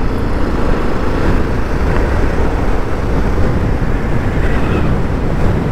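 Strong wind blast buffeting the microphone: a loud, steady, deep rushing with no clear engine note.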